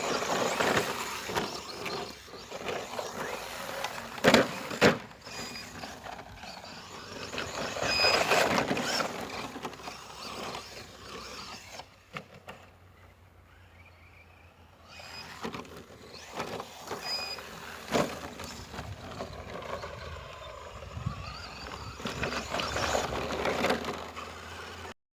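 Brushless ECX Torment 1/10 short-course RC truck driving off road, its motor and tyres surging and easing off with the throttle. Two sharp knocks about four seconds in are the loudest sounds, and there is a quieter lull about halfway through.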